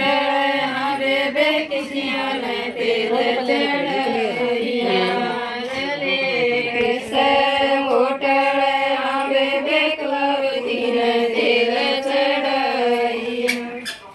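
Group of women singing a traditional wedding song together in unison, in a chant-like melody with long held notes.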